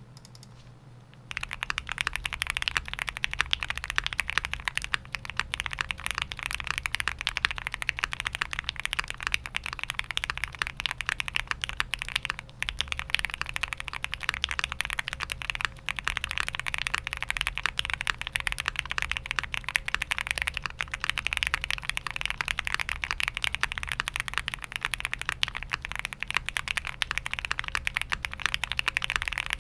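Fast, continuous typing on a foam-dampened custom mechanical keyboard with stock Gateron Oil King linear switches, a POM plate and GMK keycaps, a dense patter of key strokes. It starts about a second in, with a couple of brief pauses.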